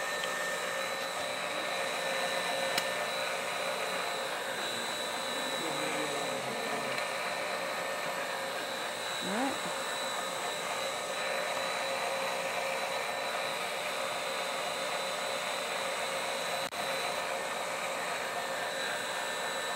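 Stand mixer motor running steadily to drive a pasta roller attachment as a sheet of pasta dough is fed through, an even hum with a few fixed whining tones.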